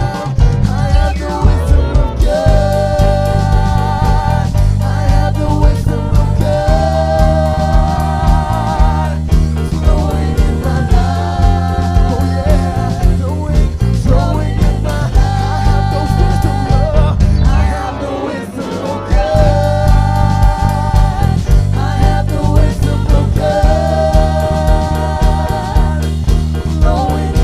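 Live worship music: a melody sung in long, wavering held phrases over a strong bass line and a steady beat, the bass dropping out briefly about two-thirds of the way through.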